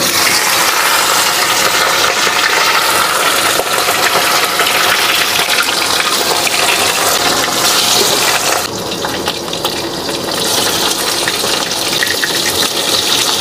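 Marinated fish pieces sizzling and spluttering in hot oil in an aluminium kadai as they are dropped in and fried, with a brief dip in the sizzle about nine seconds in.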